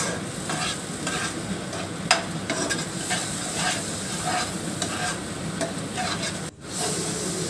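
Spice masala sizzling as it fries in oil in a non-stick pan, with a spatula scraping and stirring it in repeated strokes. The sound cuts out for an instant about six and a half seconds in.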